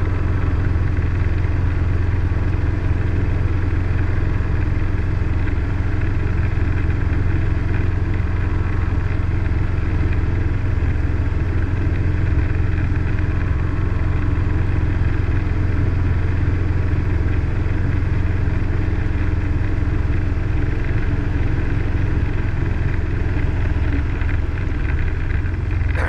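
Robinson R22 helicopter's piston engine and rotors running at a steady drone, heavy in the low end and unchanging throughout.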